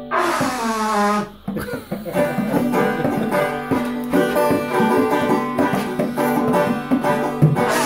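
Banjo picked together with a pair of bongos played by hand, a two-man jam. It opens with a note sliding steadily down in pitch for about a second and a short break, then the banjo and bongo strokes pick up again.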